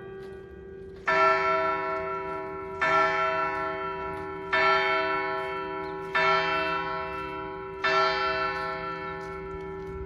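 A single church bell struck five times at an even, slow pace, roughly every second and a half to two seconds. Each stroke rings on and fades slowly under the next, over the hum of a stroke already ringing at the start.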